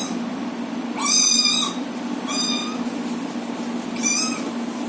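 Domestic cat meowing three times, the first call the longest and loudest, the other two short, over a steady low hum.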